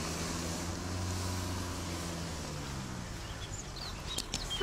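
A car engine running steadily, its note sliding lower a little past halfway through. Birds chirp briefly near the end.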